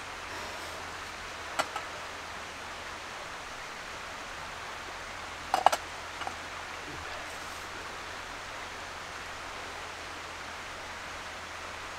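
Steady, even hiss, with a small click near the start and a sharper knock about halfway through.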